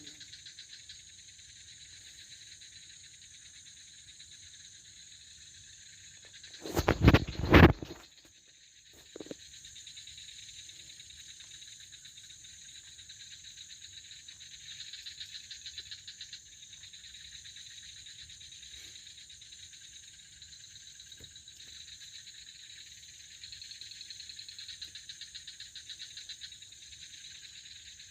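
Night chorus of insects, mostly crickets, a steady high pulsing trill. About seven seconds in there is a short, loud noise close by, with a fainter one a second or so later.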